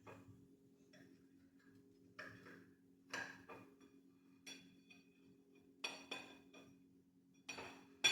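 Kitchenware knocking and clinking against dishes, a sharp strike every second or so, some with a short ringing, over a steady low hum.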